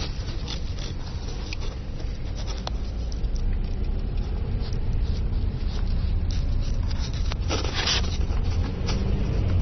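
Steady low engine and road rumble heard inside a car driving slowly, with a few light clicks and a short burst of noise about three-quarters of the way through.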